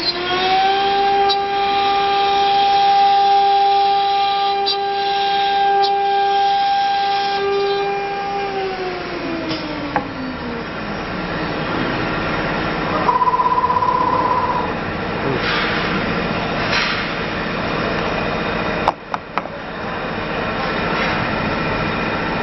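CNC router spindle spinning up to a steady high whine, holding for about eight seconds, then winding down with a falling pitch, over steady machine noise. A short electronic beep sounds partway through.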